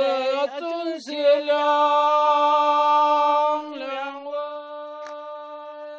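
One voice singing in a chanting style, holding long, steady notes: a loud sustained note from about a second in to past three seconds, then a softer held note.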